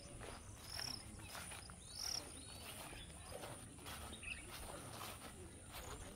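Outdoor ambience: a steady high-pitched insect drone, with a few short high chirps about one and two seconds in and a fainter one about four seconds in.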